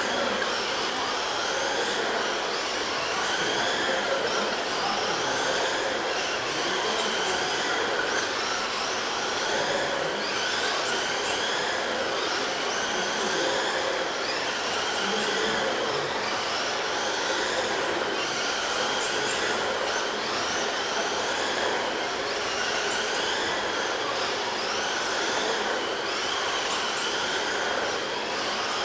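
Several 1/10-scale RC trucks racing together, their motors and gears whining in overlapping high pitches that rise and fall with throttle, over a steady hiss of tyres on dirt.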